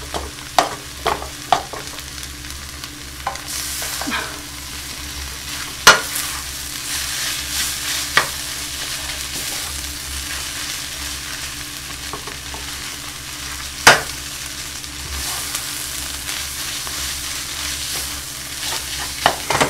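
Kimchi fried rice sizzling in a frying pan as it is stirred and pressed with a wooden spatula. Sharp knocks of the spatula against the pan come at irregular moments; the loudest two are about six and fourteen seconds in.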